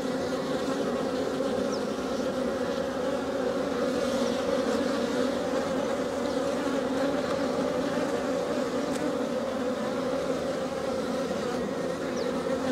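A colony of honeybees buzzing around nucleus hives: a dense, steady hum that holds one pitch.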